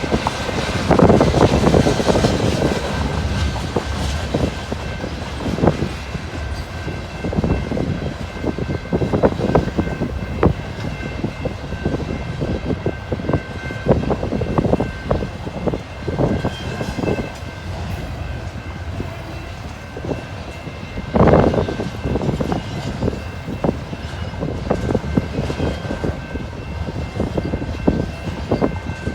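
CP Rail freight cars rolling past, the wheels clacking and knocking irregularly over the rail joints with a steady rumble underneath, and a louder knock about twenty seconds in. A faint, steady high tone sits over the clatter.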